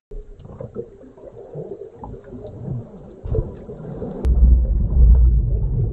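Underwater-style sound effect: muffled bubbling and gurgling with small ticks, then a loud deep bass rumble that starts with a sharp click about four seconds in.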